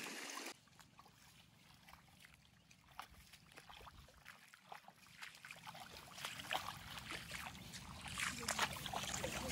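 Feet wading through shallow, muddy water in a flooded rice paddy: soft, irregular splashes and sloshing that come thicker and louder over the last few seconds.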